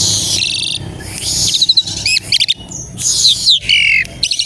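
Pied starling (jalak suren) singing: a fast buzzy trill, then a run of quick chirps and falling whistled notes, over a low steady hum.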